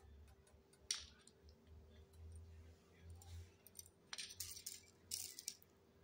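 A small parrot's claws clicking and scraping on a glass tabletop and metal tray, then its feet stirring loose seed. There is one sharp click about a second in, and short rustling bursts near the end.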